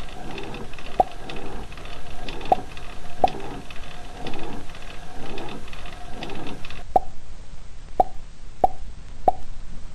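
A string of short, hollow plops, each dipping slightly in pitch, coming at irregular intervals and more often near the end. Until about seven seconds in they sit over a soft layered hum with a higher hiss, which then cuts off.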